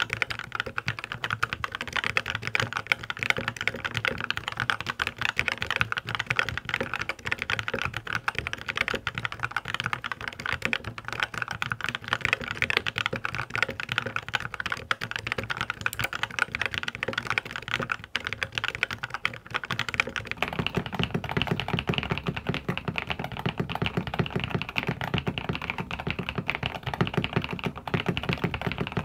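Fast, continuous typing on mechanical keyboards. First comes a white tenkeyless board with blue keycaps, then, about two-thirds of the way in, an Epomaker TH80 Pro V2, whose keystrokes sound noticeably deeper.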